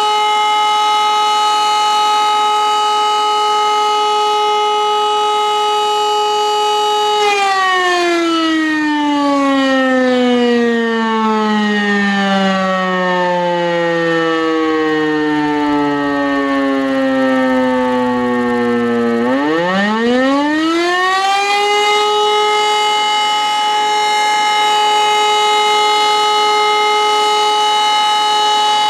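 E57 electromechanical siren sounding the fire-brigade alarm. It starts on a steady wail; about seven seconds in the pitch slowly falls for some twelve seconds as the rotor runs down between tones, then it winds back up quickly to the full steady wail for the next alarm tone.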